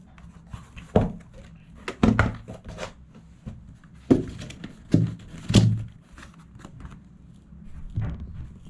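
Packaging being handled while unboxing a toy RC car: a series of irregular knocks and thunks with crinkling and tearing of plastic and paper between them.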